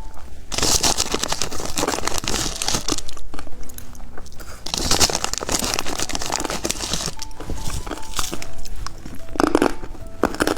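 Close-miked crinkling and crunching from a foot-shaped popping-candy snack and its wrapper, in two long crackly spells, over faint background music.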